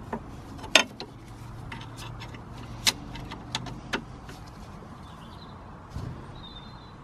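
A spanner clinking on a front strut's camber bolt nut as it is fitted and turned: several sharp metallic clicks, the loudest about a second in and near three seconds, over a low steady hum.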